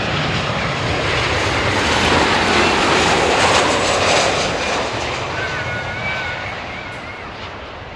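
Ryanair Boeing 737 jet airliner passing low overhead on its landing approach. Its engine noise swells to a peak about three and a half seconds in, then fades away.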